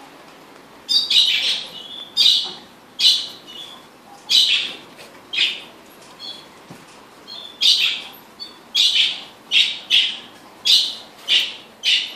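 A caged squirrel giving sharp, high alarm chirps over and over, about one a second at first and coming quicker in the second half.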